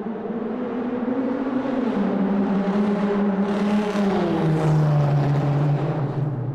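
Car engine in a tunnel, swelling in loudness to a peak about five seconds in and then fading, its pitch dropping in two steps.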